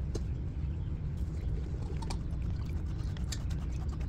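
Beef braising liquid being poured through a mesh strainer into a small pot, over a steady low rumble, with a few light clinks.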